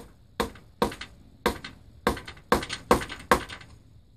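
Eight sharp metal-on-metal strikes, about two a second and slightly uneven, each with a short ring, as the riveted handle of a steel taping knife held in a vise is knocked at to free the rivets.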